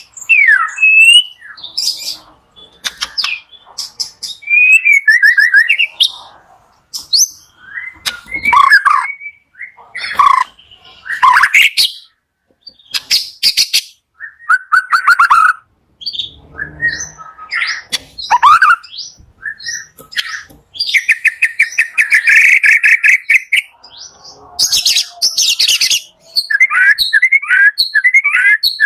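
White-rumped shama (murai batu) singing a loud, varied song of whistled notes that glide up and down and fast buzzy trills, in short phrases separated by brief pauses.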